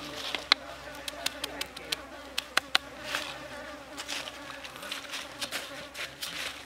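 A large knife slicing chili peppers on a wooden stump chopping block: sharp taps of the blade on the wood, the loudest one about half a second in and two close together near the middle, over a buzz of insects.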